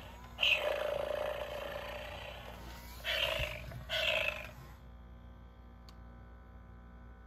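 A FurReal Friends Daisy toy cat's electronic meows from its small built-in speaker: one long, fading meow about half a second in, then two short meows around three and four seconds. After that only a faint steady hum remains.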